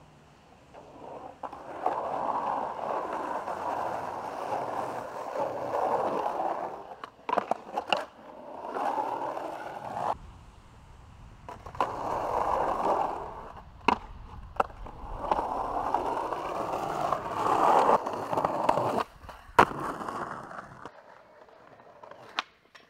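Skateboard wheels rolling over rough ground in several long runs, broken by a few sharp clacks of the board: pops and landings of tricks.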